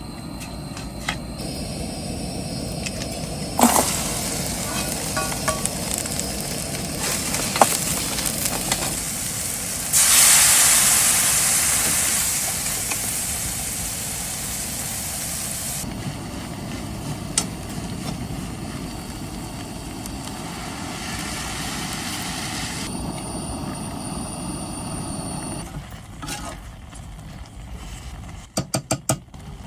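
Cooking sounds: food sizzling in a hot pan, with a loud sizzle starting suddenly about ten seconds in and slowly dying away, amid scattered clicks and knocks. Near the end comes a quick run of about five sharp knocks.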